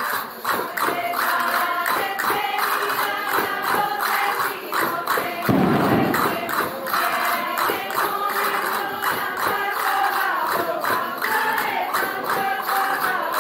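Voices singing a song together to the steady beat of tambourines, with a brief low rumble just before the middle.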